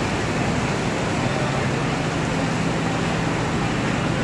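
Bangladesh Railway intercity passenger coaches rolling slowly past along the platform: a steady rumble of wheels and running gear with a low hum under it.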